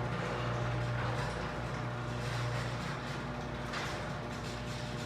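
Craftsman 139.53930DM garage door opener running and raising the garage door: a steady motor hum with the door's rolling rattle, the hum weakening about three seconds in. The opener is very quiet.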